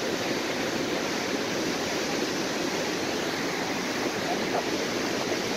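White-water rapids of a mountain river rushing steadily over rocks, an even, unbroken noise.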